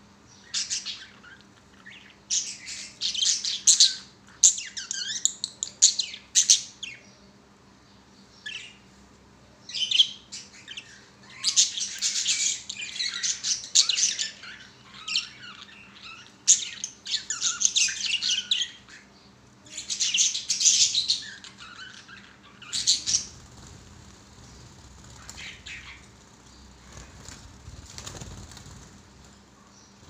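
Budgerigars chirping and chattering in repeated bursts, with wings flapping as birds flutter close by. The chatter dies away about three quarters of the way through.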